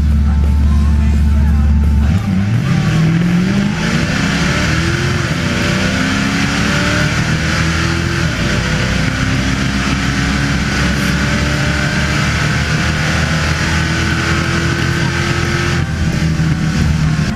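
Ford Pinto drag car's engine heard from the car during a drag-strip pass. It holds steady revs at the line, then launches about two seconds in, its pitch climbing in steps through the gears and staying at high revs, easing off about a second before the end.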